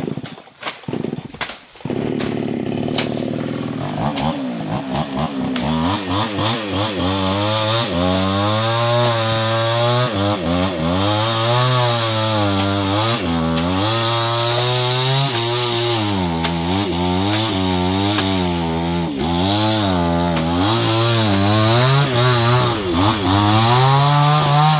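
A few knocks, then a two-stroke chainsaw starts up about two seconds in and runs continuously, its pitch rising and falling as the throttle is worked and the chain cuts into the base of a salak palm clump.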